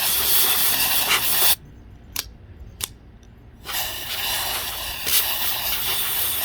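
Can of compressed air spraying into an OTF knife in two long hissing bursts. Between them come two sharp clicks, the out-the-front blade being cycled out and back.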